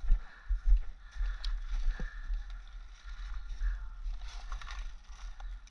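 Footsteps on a bark-covered woodland path and gear rustling as the wearer walks, with a few sharp clicks and a steady low rumble on the microphone.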